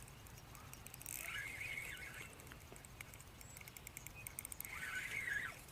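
A small bird chirping twice, about a second in and again near the end, over faint rapid ticking from a spinning reel being wound in as a bullhead is landed.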